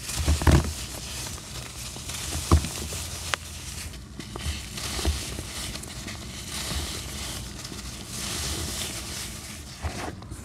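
Dry black sand chunks crumbled and squeezed between gloved hands: gritty crunching and the hiss of falling grains, with a few sharper cracks as lumps break, the loudest about half a second in and about two and a half seconds in.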